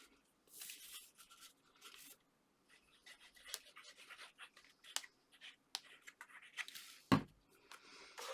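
Card being handled and pressed into place: soft rustles and small clicks, with one louder thump about seven seconds in.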